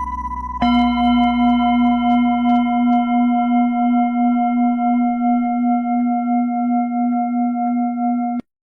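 Steady, pure, tuning-fork-like tones of meditation music. A high tone sounds first, then about half a second in a lower tone with a few overtones takes over and is held evenly, stopping suddenly just before the end.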